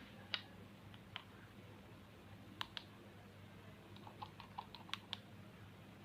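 Light, sharp clicks and taps of small hard objects being handled, scattered singly at first, then coming quicker in a cluster near the end.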